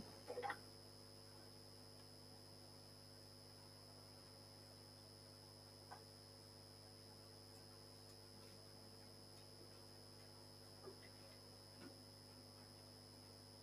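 Near silence: room tone with a steady electrical hum and a few faint, brief ticks.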